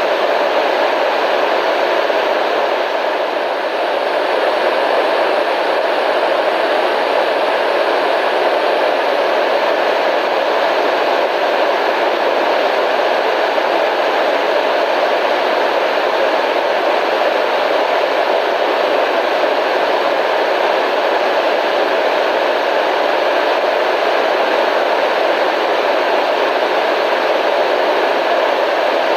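Constant radio static: a steady, even hiss, fullest in the middle range with little deep rumble or high sizzle, unchanging throughout.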